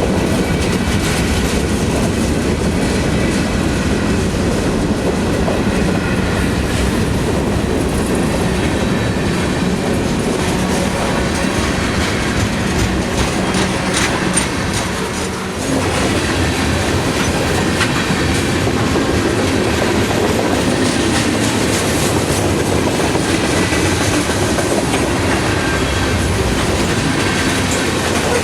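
A CSX freight train rolling past: a steady rumble of the cars, with wheels clicking over the rail joints and a faint high squeal of wheels on the rails.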